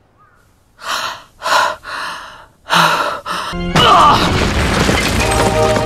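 Four short, breathy gasps from a cartoon character, then, about three and a half seconds in, a loud crash of breaking rock with a deep rumble as dramatic music comes in.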